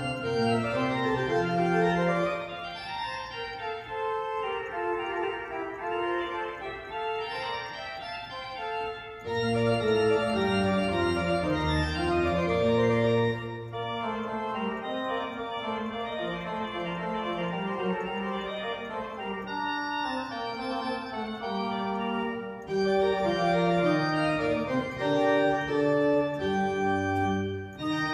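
Church organ playing sustained chords and moving lines. It swells into louder, fuller passages with deep pedal bass about ten seconds in and again near the end.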